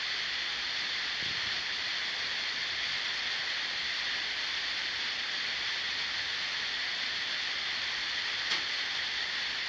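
Steady background hiss with no speech, and a single faint click about eight and a half seconds in.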